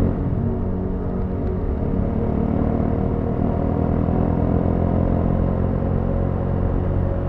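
Motorcycle engine running steadily on the move, a constant engine note with a slight easing about a second in.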